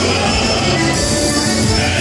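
Live gaúcho dance band playing loud, steady dance music.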